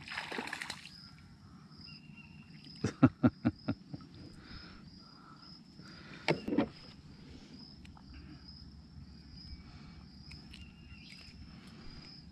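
Insects, crickets or cicadas, chirping steadily and high-pitched throughout. Over them a splash comes at the start, then a quick run of five sharp knocks about three seconds in and another short knock a few seconds later, as a small hooked fish is brought up beside the kayak.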